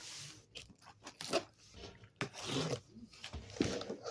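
A cardboard shipping box being opened: packing tape ripping and cardboard scraping in short, irregular rasps.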